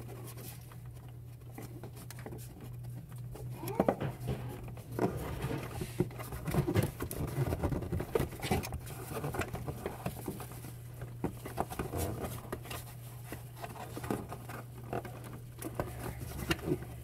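Irregular small clicks, taps and rubbing from hands working the plastic bumper trim and clips, over a steady low hum. The clicks come thickest from about four seconds in.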